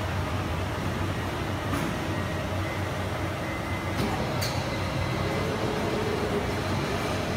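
Steady industrial machinery noise in a heat-treatment shop: a low hum under an even hiss, with a few light clicks about two seconds in and twice more around four seconds.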